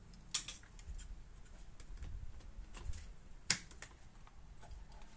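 Scattered plastic-and-metal clicks and knocks of a graphics card being handled and pushed into a motherboard's PCIe slot, with a sharp snap about three and a half seconds in as the card seats.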